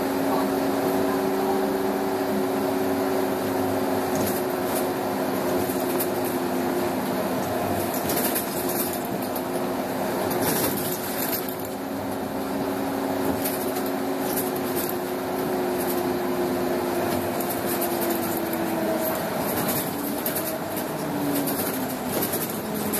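Volvo Olympian double-decker bus with a Cummins L10 engine and ZF automatic gearbox, heard from inside while driving. A steady drivetrain whine runs with intermittent rattles, and the whine falls in pitch near the end as the bus slows.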